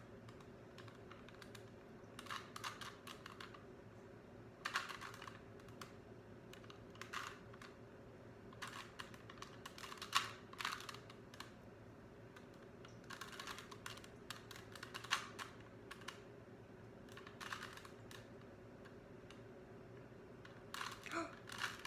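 A 3x3 Rubik's Cube being twisted by hand: quick runs of plastic clicking as the layers turn, in short bursts with pauses between.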